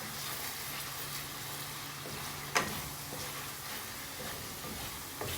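Chicken and diced tomato sizzling in a pan as they are stirred, with a steady low hum underneath. A sharp knock about halfway through and a lighter one near the end.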